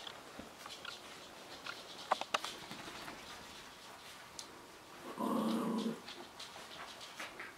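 Havanese puppies play-fighting, with soft scuffling and scattered light ticks. About five seconds in, one puppy gives a single play growl lasting about a second, the loudest sound.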